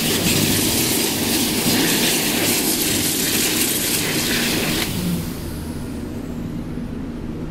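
Panasonic jet-air hand dryer blowing, a loud steady rush of air while hands are held in its slot. About five seconds in it shuts off and its fan winds down, the hiss fading away.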